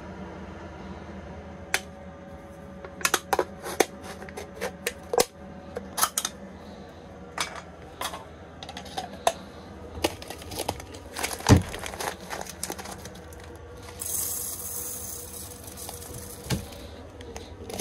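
Scattered clicks, taps and clinks of kitchen things being handled on a counter, with one louder knock about halfway through. Near the end, a steady hiss for about two seconds as dry grains pour from a pouch into a container.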